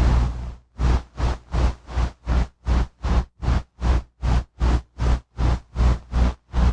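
Lo-fi tape music track made of rhythmic noise. A hiss with a deep rumble cuts off about half a second in. Then comes a steady train of evenly spaced noise pulses, each with a deep thump, nearly three a second.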